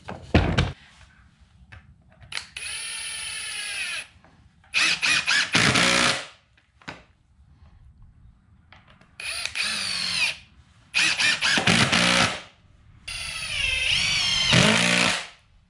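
Ryobi cordless drill driving screws into wood in five separate runs of motor whine, each one to two seconds long. In some runs the whine dips in pitch as the screw takes the load. A sharp knock comes just before the first run.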